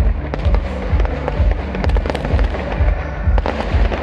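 Fireworks crackling and popping with many sharp small bangs, over music with a steady, heavy bass beat of roughly two to three beats a second.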